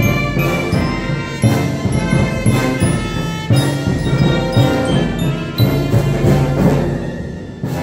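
Guatemalan procession band of brass, woodwinds and percussion playing a son: held melodic notes over strongly accented percussion beats.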